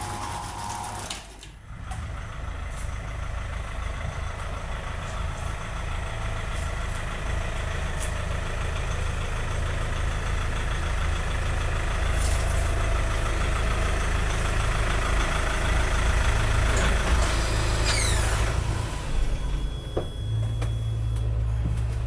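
A motor vehicle's engine running steadily and growing louder, with a short falling whine about three quarters of the way through.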